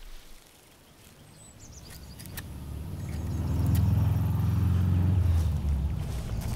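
Low engine rumble of an approaching motor vehicle, swelling up from near quiet over a few seconds and then holding. A bird chirps faintly about a second in.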